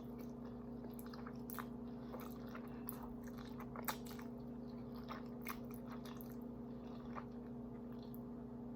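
Close-miked chewing of a mouthful of creamy Alfredo pasta: soft wet smacks and mouth clicks scattered throughout, the sharpest about four seconds in, over a steady low electrical hum.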